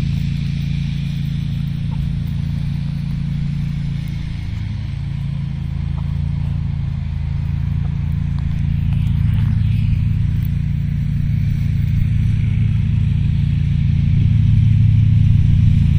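An engine running steadily, a low hum that grows a little louder near the end.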